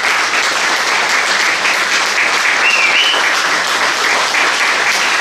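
Large audience applauding steadily, a dense wash of clapping with a short high rising note about halfway through.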